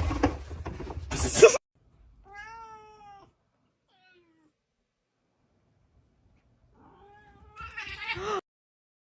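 Domestic cat meowing: a few separate meows, one about two seconds in lasting about a second, and another near the end, with quiet in between.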